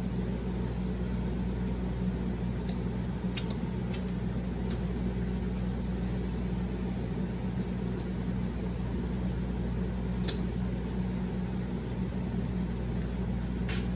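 A steady low hum with a few short, sharp clicks and smacks from a person eating, about four in all.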